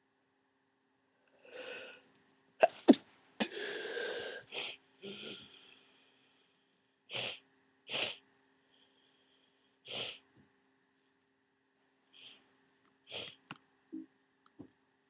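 A person with a congested head cold sneezing: a breath in, then a loud, sharp sneeze about three seconds in, followed by a noisy rush of breath. A string of shorter, sharp sneezes or sniffs comes after it, spaced a second or two apart.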